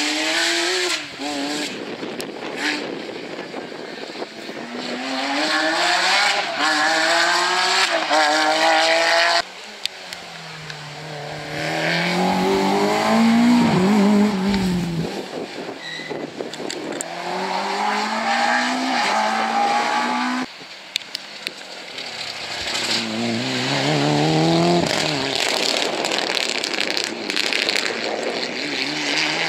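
Rally cars accelerating hard, one after another: a Porsche 911, a Volkswagen Golf and a Mitsubishi Lancer Evolution, each engine revving up in repeated rising sweeps with a drop at every gear change. The sound cuts abruptly from one car to the next twice.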